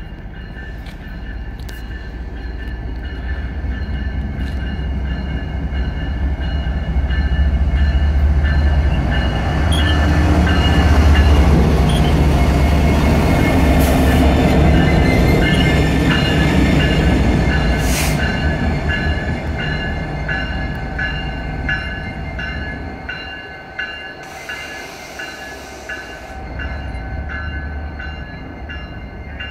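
A CN diesel freight locomotive approaches and passes close by, its heavy engine rumble swelling to its loudest about ten to seventeen seconds in, then easing as the train rolls on. A level-crossing bell rings steadily, about one stroke a second.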